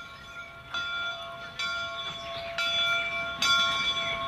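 Steam locomotive's bell ringing, struck about once a second with each strike ringing on, growing louder as the engine approaches.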